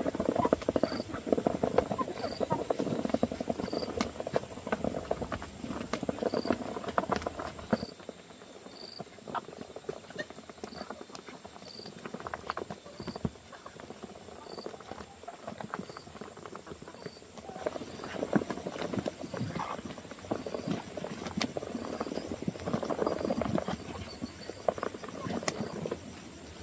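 Dense rustling and crackling in two long spells, fading in between, with a faint short high chirp repeating about once a second over a steady thin high whine.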